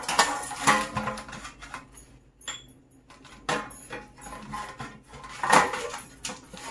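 Silicone pastry brush scraping and dabbing grease inside a black nonstick metal cake pan, with light clatters and knocks of the pan as it is handled, the loudest about five and a half seconds in.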